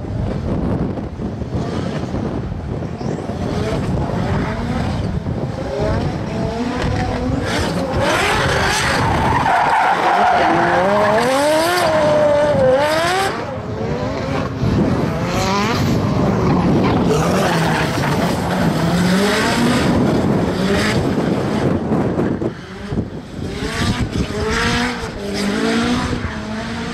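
Nissan S13 drift cars sliding with their tyres squealing, the engine note rising and falling over and over as the throttle is worked through the drifts.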